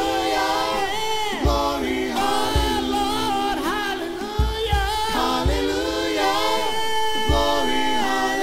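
Gospel vocal group singing in close a cappella harmony, several voices gliding together, with short low thumps under the voices.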